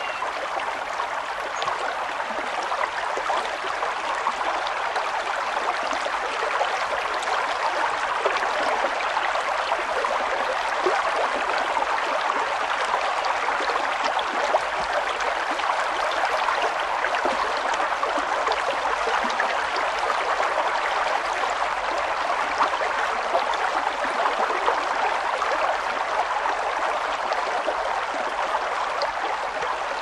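Steady rushing of running water, like a stream, an even hiss-like wash with no change throughout.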